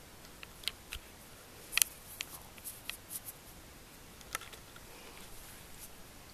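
Scattered small clicks and scratchy rustles of a fleece dressing gown and the camera being handled close to a moving kitten, the loudest about two seconds in, with one more sharp click near the middle.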